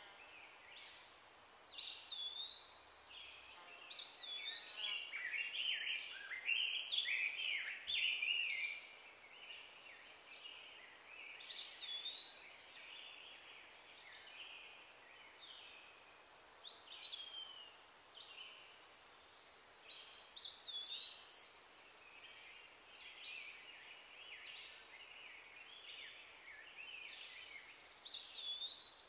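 Wild birds calling in the background: clusters of short, high whistled notes, one phrase with a quick rise and fall repeated every few seconds, over a faint steady outdoor hiss.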